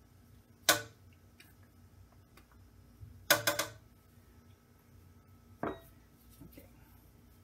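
Metal utensils clinking against a stainless steel stockpot as a teaspoon of colorant goes in and a stick blender is lowered into the soap batter. There is a sharp clink about a second in, a quick run of clinks around three seconds in, and a duller knock near six seconds.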